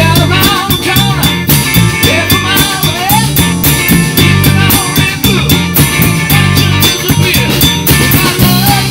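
Live rock band playing: electric guitar, bass, keyboard and drum kit with a steady beat.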